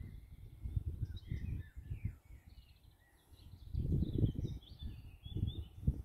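Several songbirds chirping and trilling in quick high notes, over a low uneven rumble of wind buffeting the microphone that gusts loudest about four seconds in.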